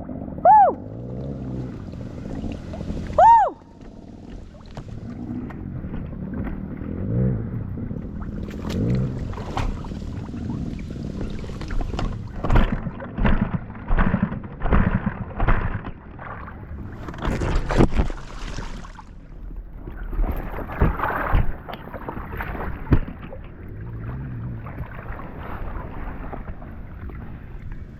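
Dirt-bike engine blipped sharply a few times near the start, then revving and rumbling under load, with a string of knocks and splashes in the middle, typical of a bike struggling in deep mud.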